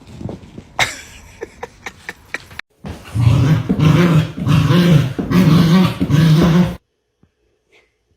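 A dog growling in four long, drawn-out growls, each about a second, after a few sharp clicks and taps.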